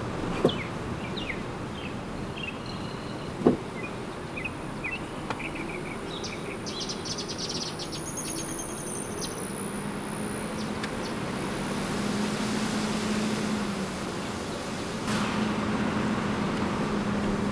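Steady road and engine noise from a car driving slowly, heard from inside the car, with birds chirping outside during the first half and a couple of short knocks. A low hum sets in about ten seconds in, and the noise grows louder about fifteen seconds in.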